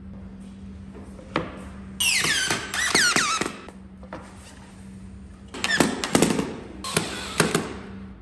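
Cordless drill driving screws into MDF in two bursts: the first, about two seconds in, with the motor's whine sliding down in pitch as the screw bites; the second, longer and stop-start with sharp clicks, about five and a half seconds in.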